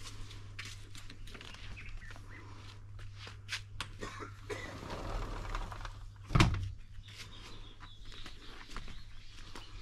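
Footsteps on an outdoor path and birds chirping, over a steady low hum. About six seconds in there is a single loud thump.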